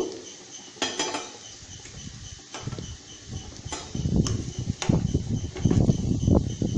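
A spatula stirring chopped mushrooms in a nonstick kadai: a few light knocks against the pan at first, then from about four seconds in a busier run of scraping and knocking as the mushrooms are tossed.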